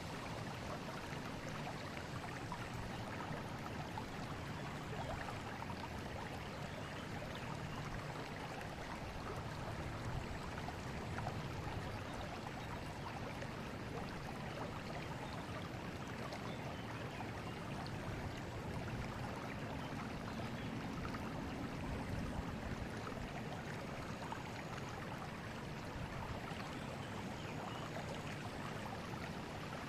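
Forest river flowing steadily, its water rushing and gurgling as a constant wash of sound.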